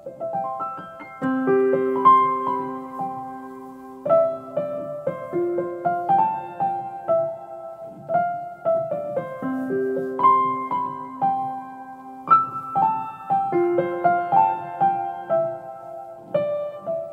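Background piano music: a gentle melody of single decaying notes over held low notes, its phrases repeating about every four seconds.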